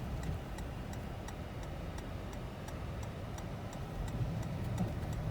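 Steady, even ticking at about two a second, over the low rumble of engine and tyres heard from inside the cabin of a 2020 Toyota 4Runner TRD Off-Road driving in deep snow.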